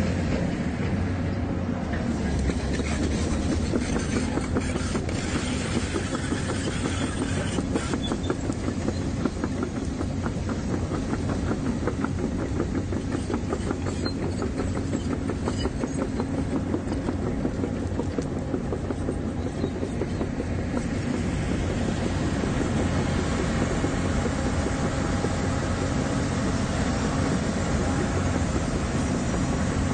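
Diesel engine of heavy tracked construction machinery running: a deep, steady drone with a fast, even pulsing.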